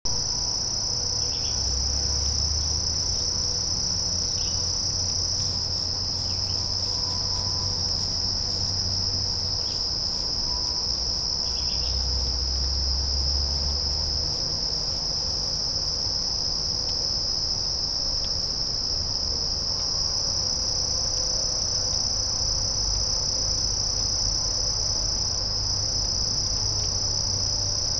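A steady chorus of insects: one continuous high-pitched trill that never lets up. A faint low rumble comes in twice.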